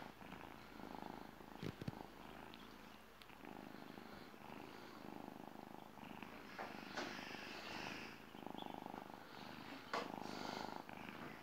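Tabby kitten purring close up, the purr swelling and easing with each breath, with a couple of soft knocks partway through and near the end.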